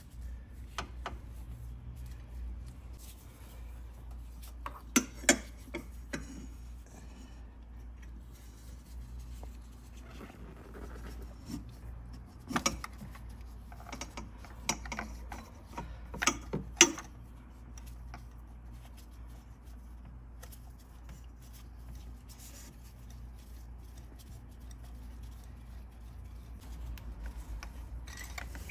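Scattered sharp clicks and light knocks of a socket extension and hands working among the engine parts at the number 6 spark plug, most of them around the middle, over a low steady hum.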